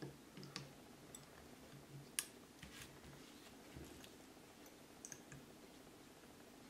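A few faint, scattered clicks of small steel gun parts being handled: a small flat-blade screwdriver working against a Browning Hi-Power pistol frame while its safety spring is pushed into place. The sharpest click comes about two seconds in.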